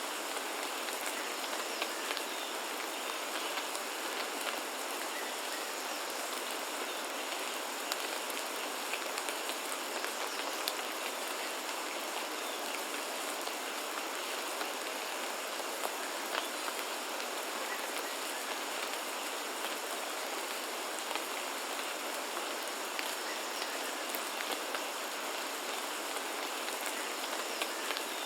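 Steady rain falling on foliage, a dense even hiss with scattered sharp drip ticks, and a faint steady high-pitched tone underneath.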